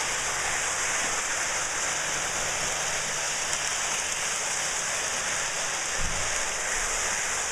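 Lionel electric toy trains running on their track, a steady rushing whir of wheels and motors, with a short low knock about six seconds in.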